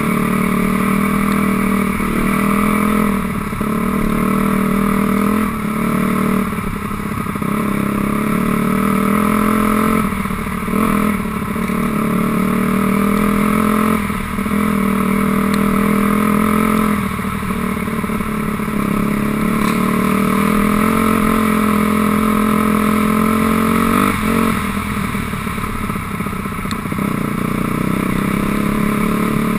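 2006 Honda CRF250R's single-cylinder four-stroke engine running under way at a fairly steady pitch, with brief dips in the engine note every few seconds as the throttle is eased and opened again.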